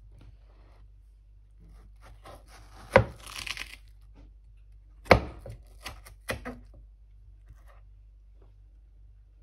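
Kitchen knife cutting through a halved watermelon on a wooden cutting board: two sharp knocks of the blade on the board, about three and five seconds in, the first followed by a brief crisp crunch of the cut, then a few lighter taps.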